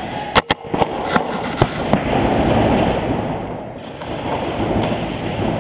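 Paintball markers firing: a quick, irregular run of sharp pops in the first two seconds over a steady rushing background noise.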